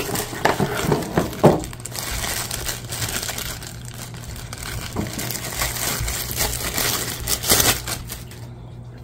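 Clear plastic wrapping crinkling and rustling as it is handled and pulled off a hand tool, with cardboard box and paper handling mixed in. It is loudest in the first second and a half and again shortly before the end, then dies down.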